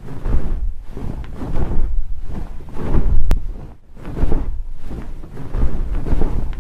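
Low rumbling handling noise on a handheld camera's microphone, swelling and fading about once a second as the camera is carried around, with one sharp click about three seconds in.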